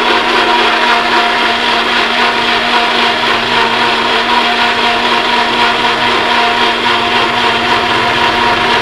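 Personal bullet-style blender motor running at a steady high pitch, blending a thick mango-and-milk mix into a milkshake.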